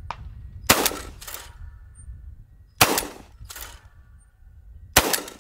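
Three shotgun shots at clay targets, about two seconds apart. Each sharp crack is followed by a fainter one about half a second later.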